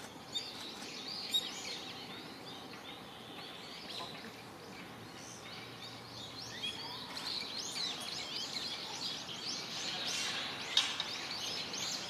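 Small birds chirping in quick, short calls, the chirping growing much denser and louder about seven seconds in, with a sharp click near the end.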